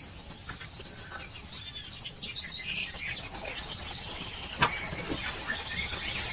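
Small birds chirping and singing in quick, high, rising and falling notes, over a steady high-pitched whine. One sharp click comes a little after halfway through.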